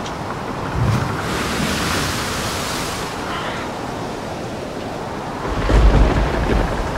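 Storm sound effect: wind and surf with a steady rushing noise, swelling about a second in, and a deep rumble rising near the end.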